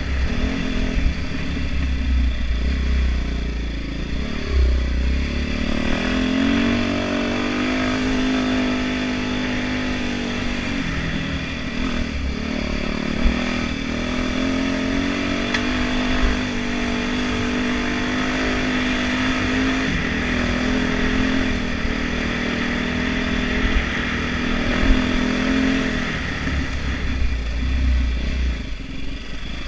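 Dirt bike engine running while the bike is ridden along a trail, its pitch climbing and dropping with the throttle. A heavy low rumble sits under it near the start and again near the end.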